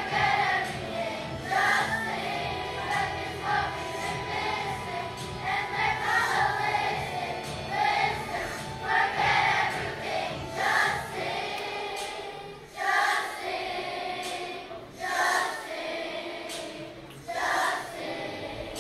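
A children's choir singing with music underneath. About twelve seconds in the low backing thins out, leaving short sung phrases with brief gaps between them.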